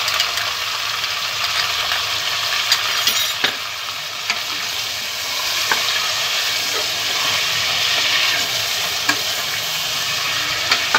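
Mutton pieces and ginger-garlic paste sizzling in hot oil in an aluminium pressure cooker as the meat is browned, with a steel spoon stirring and scraping, clicking against the pot a handful of times.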